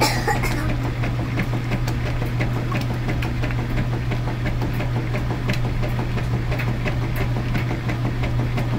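Top-loading washing machine agitating a load in soapy water during the wash stage: a steady motor hum with the churn of water and fabric.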